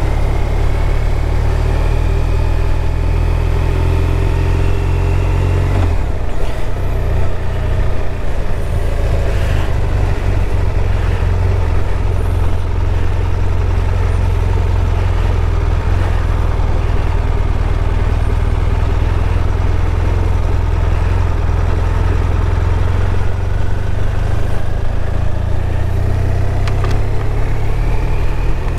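BMW R1200RT's boxer-twin engine running as the motorcycle rides along, its pitch rising as it accelerates in the first few seconds and again near the end.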